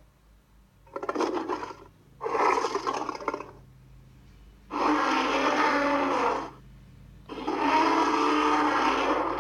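Godzilla roar sound effects: four separate rasping monster roars. Two short ones come first, then two longer, drawn-out roars.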